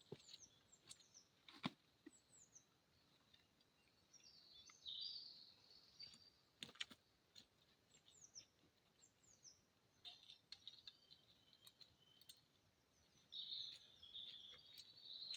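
Faint birdsong: short falling chirps and twittering in bursts, with a few sharp clicks scattered through.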